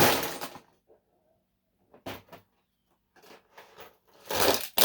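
Rattling and clattering of a storage drawer full of fidget toys being worked and its contents shaken about. There is a loud burst at the start, a shorter one about two seconds in, a few scattered clicks, and the loudest burst near the end.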